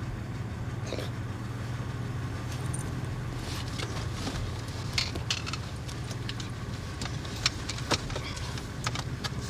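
Car engine idling with a steady low hum, under scattered clinks and knocks from a pair of metal crutches being manoeuvred into the car.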